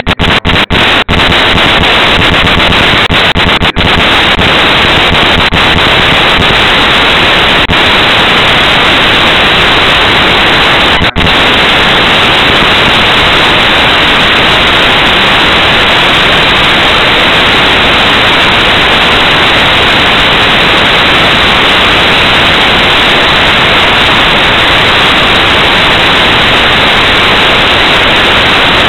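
Loud, steady static hiss from a malfunctioning cheap camcorder, with no speech audible, broken by a few brief dropouts in the first few seconds and once more about eleven seconds in.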